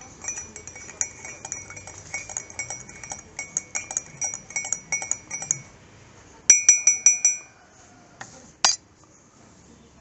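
Bright, bell-like metallic rings struck in quick succession, several a second, for about five seconds; a louder burst of about five quick rings comes about six and a half seconds in, followed by a single sharp click.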